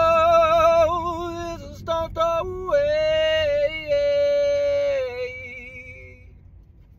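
A man singing long, high, wordless 'whoa' notes with heavy vibrato, unaccompanied. There are a few held notes with short breaks between them, and the last one slides slightly down and fades out about six seconds in.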